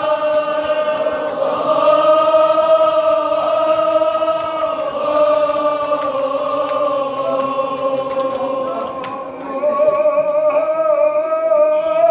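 Kashmiri marsiya, a Shia elegy, chanted by several men's voices together in long, drawn-out notes, with a brief dip about three-quarters of the way through.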